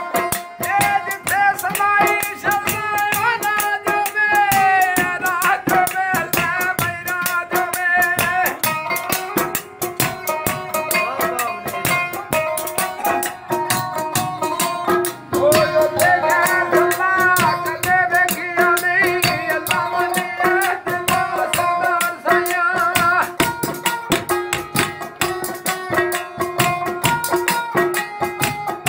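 Punjabi Sufi folk music: fast hand-drum strokes over a steady drone, with a wavering, ornamented melody line in two long phrases, one starting about a second in and another from about fifteen seconds.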